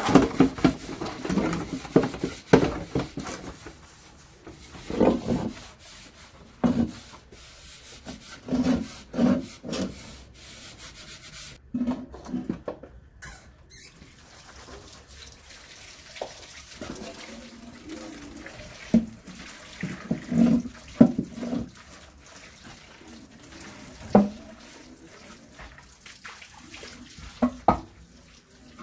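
Dishes being washed by hand at a sink: scrubbing and water sounds, with frequent irregular knocks and clatter of dishes.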